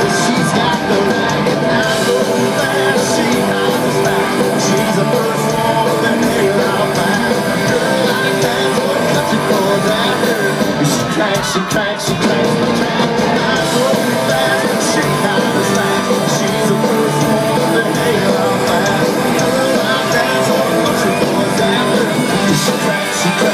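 Live country-rock band playing loudly on stage, with electric guitars and drums, heard from within the audience.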